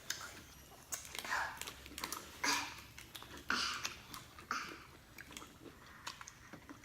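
A person chewing fast food, with wet mouth noises coming in short bursts about once a second.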